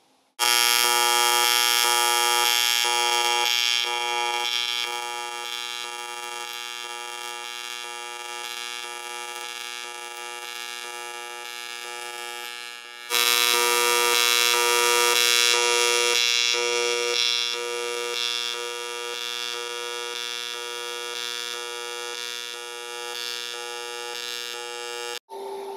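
AC TIG welding arc on aluminium buzzing steadily, pulsed once a second between 120 amps peak and 30 amps background, so the buzz swells and eases about once a second. The arc stops briefly about 13 seconds in and is struck again.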